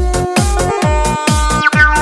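Electronic dance music: a steady kick drum about twice a second under held synthesizer notes.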